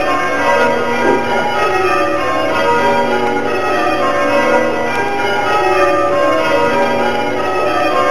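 Church tower bells rung full-circle in rounds by hand from the ringing chamber below, each bell striking in turn in a steady, continuous sequence of overlapping rings.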